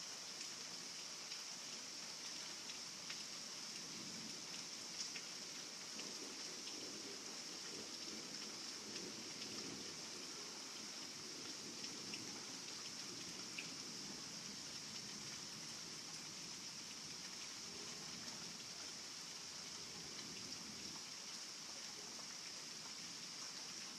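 Heavy rain pouring steadily, a dense hiss with scattered sharp drop ticks. A faint low rumble runs underneath through most of it.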